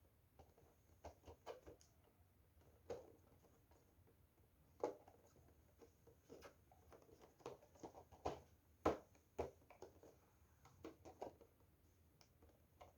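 Faint handling noises from unboxing a Funko Pop vinyl figure: scattered light taps, clicks and rustles of cardboard and plastic packaging, with the sharpest tap about nine seconds in.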